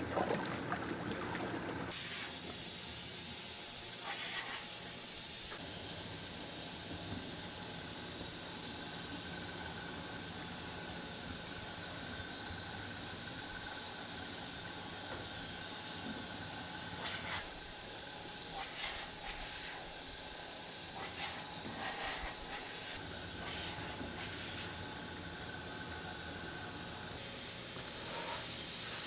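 Steady workshop machinery noise: a strong high hiss over a low steady machine hum, with a few faint knocks scattered through.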